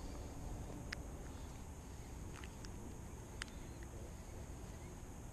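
Outdoor ambience at the water's edge: a steady low rumble of wind on the microphone, with a few short sharp clicks about one, two and a half, and three and a half seconds in.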